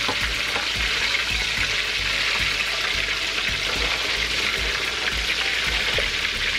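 Breaded pork cutlets (tonkatsu) deep-frying in a pan of hot oil: a steady, even sizzle.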